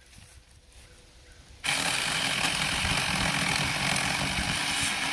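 Saker 4-inch 20-volt cordless mini chainsaw switching on suddenly about a second and a half in, its electric motor and chain running steadily as it cuts into hickory.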